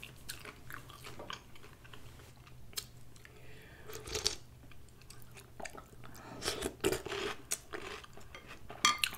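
Close-miked chewing and wet mouth sounds of someone eating tomato soup, with a sip from a spoon about four seconds in and a few louder bursts of chewing a couple of seconds later.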